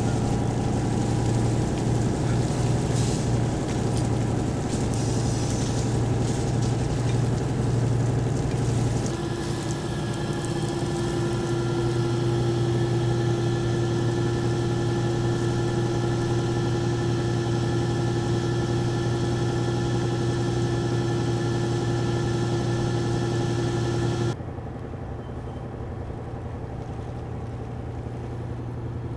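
Engine running steadily with a low hum and a steady higher tone. The sound shifts abruptly about nine seconds in and becomes quieter near the end.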